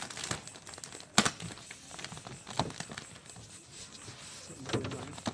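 Matte vinyl wrap film being stretched by hand and worked down with a squeegee on a car hood: scattered crackles and clicks from the film, with one sharp snap about a second in.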